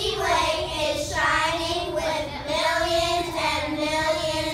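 A group of young children singing together, holding long notes.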